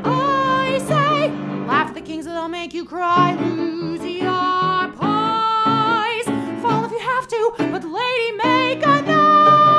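A woman singing a show tune with strong vibrato over a recorded backing track.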